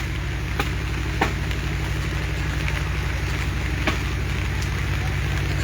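An engine running steadily at idle, a low even hum, over a constant hiss, with a few sharp ticks.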